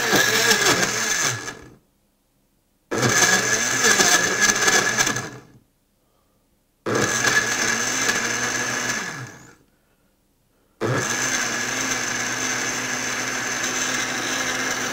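Farberware heavy-duty blender on its pre-programmed shake setting, its motor pulsing three times in bursts of a couple of seconds, each spinning down into a brief silence, to chop up a whole banana and ice cream in milk. Near the end it switches to steady, continuous blending once the chunks are broken up.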